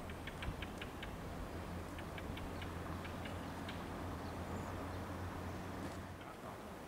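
Quiet ambience: a steady low hum that fades out near the end, with two short runs of faint, high, quick ticks, about half a dozen in the first second and a few more between two and four seconds in.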